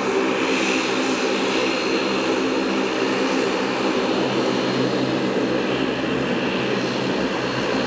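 Jet aircraft engines running steadily, a constant noise with a high whine that neither rises nor falls.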